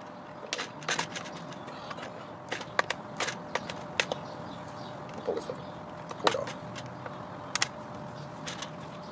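Scattered clicks, taps and knocks at irregular intervals from hands handling the plastic body and chassis of a nitro RC monster truck, with the engine not running. A faint steady tone sits underneath.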